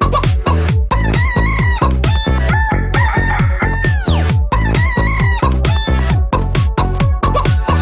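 Techno track built from sampled chicken clucks and squawks over a fast, steady kick-drum beat. A long falling pitch sweep comes about four seconds in.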